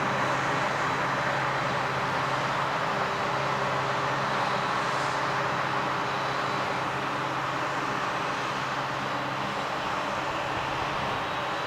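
Valtra tractor's diesel engine running steadily under load while pulling a plough, a constant low drone.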